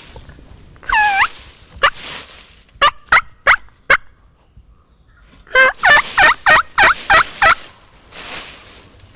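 Wild turkey yelps and clucks. One falling yelp comes about a second in, then four sharp clucks, then a fast run of about seven yelps in under two seconds.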